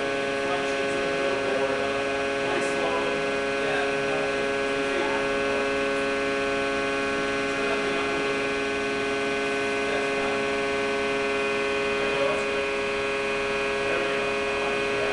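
Large compression testing machine running with a steady hum of several fixed pitches, its loading head resting on a crushed concrete test column.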